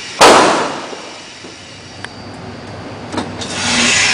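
A single loud pistol shot from a Colt Combat Commander in .45 ACP, ringing out and echoing away over about a second. Near the end there is a softer rush of noise.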